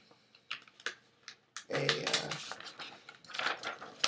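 Sheets of printer paper rustling and flapping as they are handled and waved, with scattered small clicks and crinkles. About two seconds in there is a short low hum-like vocal sound.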